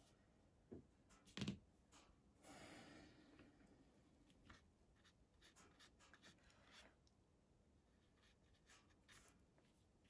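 Near silence with faint sounds of watercolour brushes being handled and swapped: a light knock about a second and a half in, a brief scratchy rustle soon after, and a few soft ticks.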